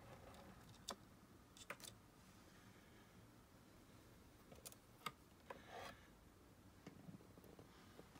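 Near silence: quiet room tone with a few faint clicks and a brief soft rub, handling noise from a white cotton-gloved hand around the figure and camera.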